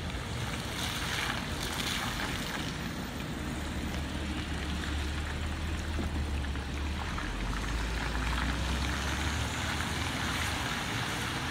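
Audi S4's supercharged V6 running with a low drone at low speed, swelling about midway as the car rolls close past and fading as it pulls away. Throughout, a steady hiss of tyres on wet pavement.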